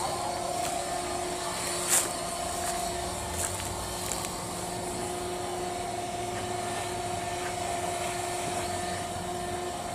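Kubota DC-105X combine harvester's diesel engine idling steadily, a constant hum with a steady whine over it. A single sharp click about two seconds in.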